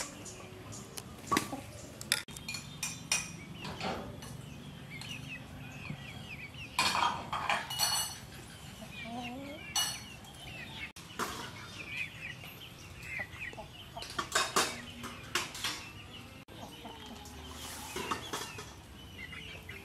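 Chickens clucking and chirping in the background, with several sharp clinks and rustles from a metal spoon against a bowl and banana leaves being handled and folded.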